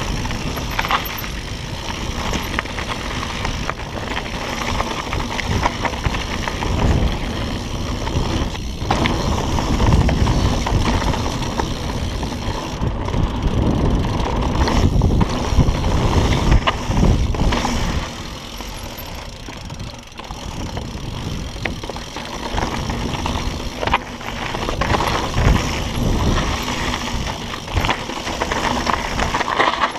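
Mountain bike riding fast down a rough dirt singletrack: wind buffeting the microphone as a heavy rumble, with tyres crunching over dirt and rocks and many short knocks and rattles from the bike.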